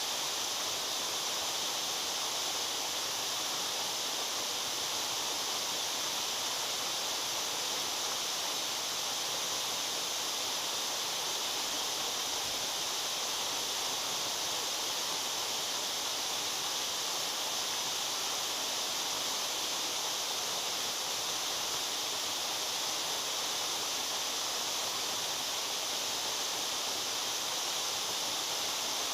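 Waterfall running steadily: an even rushing hiss of falling water, strongest in the upper range, with no change throughout.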